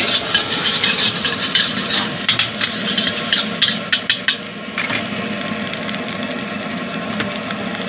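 Metal spatula scraping and tapping against a steel wok while egg and seasoning sizzle in hot oil during stir-frying. The scrapes and taps come thick in the first few seconds, then the sizzle goes on more evenly.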